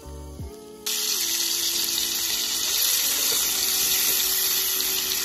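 Bacon sizzling in a small frying pan on a portable gas stove: a steady hiss that starts suddenly about a second in and stops near the end, with soft background music underneath.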